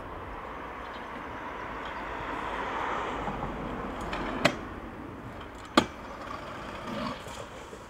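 Freestyle stunt scooter wheels rolling on concrete, with two sharp clacks about a second apart as the scooter strikes the concrete ledge.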